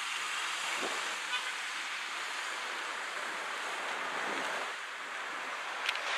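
Mercedes-AMG GT moving off slowly, its V8 low under a steady hiss, with a brief click near the end.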